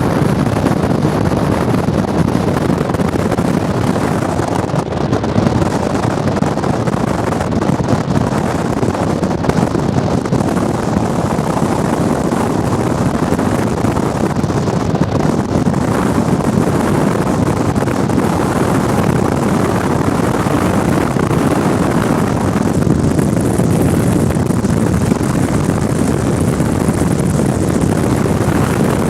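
Steady, loud rushing noise with no distinct events: a running vehicle's road noise mixed with wind buffeting the microphone.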